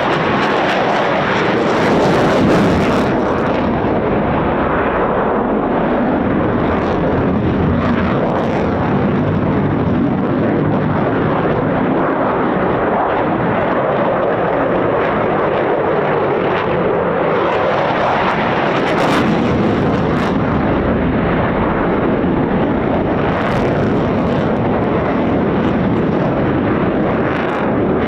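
Eurofighter Typhoon fighter jet's twin turbofan engines, a loud continuous jet roar with the pitch sweeping down and back up as the jet moves through its display manoeuvres.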